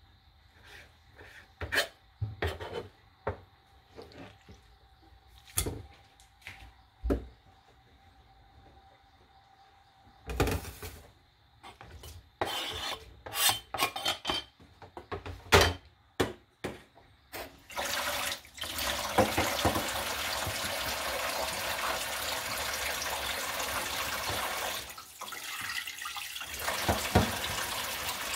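A kitchen knife chopping konnyaku on a plastic cutting board in scattered knocks, then clattering as the pieces are scraped off the board into a metal pan. About two-thirds of the way in, the kitchen tap starts running into the pan while the konnyaku is rubbed and rinsed by hand.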